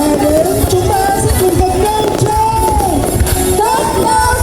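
Loud pop song: a voice singing a gliding melody over a heavy bass.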